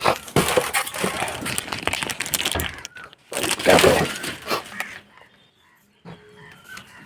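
Crackling, crinkling handling noise of packaging being worked over for about five seconds, with a brief break partway, then a short near-silent pause.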